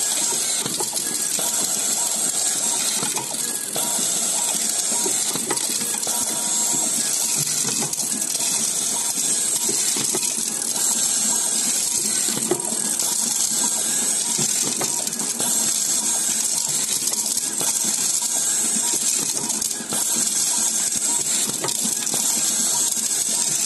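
Automatic screw-fastening machine and screw feeder at work, heard as a steady hiss with occasional faint clicks.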